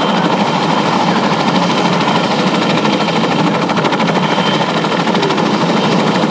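Tandem-rotor helicopter running on the ground with its rotors turning: a steady turbine whine over fast, even blade chop.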